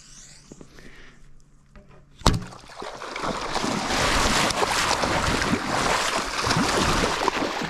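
A recurve bow is shot about two seconds in, a single sharp snap. Loud, continuous splashing follows as feet run through shin-deep water.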